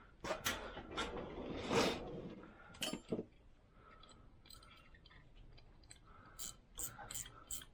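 Small metallic clicks and light scraping as a grease fitting is handled and fitted into a steering pitman arm, with a cluster of sharper clicks near the end.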